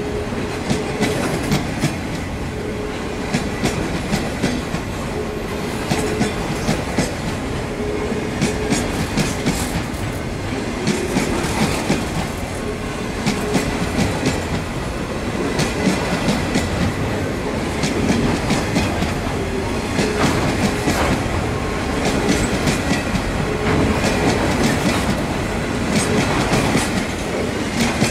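Freight train wagons rolling past close by, a steady rumble with the wheels clicking over the rail joints in repeated clusters and short ringing tones every second or two.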